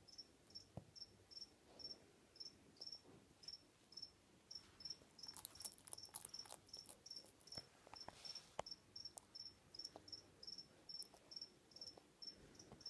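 A cricket chirping steadily and faintly, about three short high chirps a second. A cluster of faint clicks and crackles comes midway.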